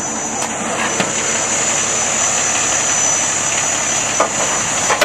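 Fire truck engine running steadily at idle, with a few short clicks about a second in and near the end.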